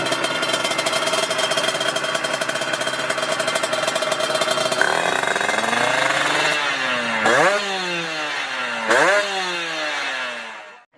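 Two-stroke drag-racing motorcycle engine running at a steady high idle, then revved: the pitch climbs and sags, and two sharp throttle blips shoot up and fall away slowly near the end.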